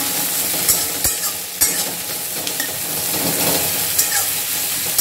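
Sliced onions sizzling as they fry in mustard oil in a steel wok, stirred with a metal spatula that knocks and scrapes against the pan a few times.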